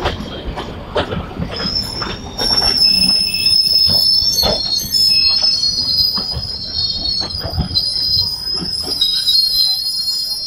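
Suburban EMU local train's coaches running past close by as it slows. The steel wheels squeal high and steady on the rails from about a second and a half in, over the knock of wheels crossing rail joints.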